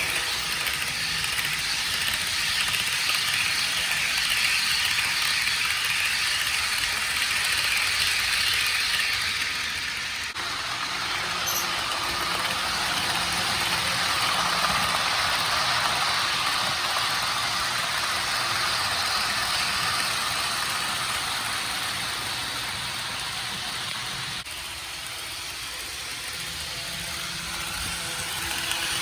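HO-scale model trains running on the layout: a steady rattle and whir of wheels on the rails and the locomotive motor. The sound changes abruptly about ten seconds in and again later on.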